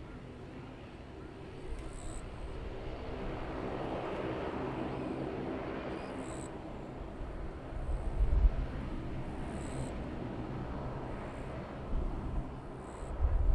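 Regional airliner's engines droning as it passes, with several steady tones. The sound swells to a peak about four seconds in, then eases off. Low rumbles come about eight seconds in and again near the end.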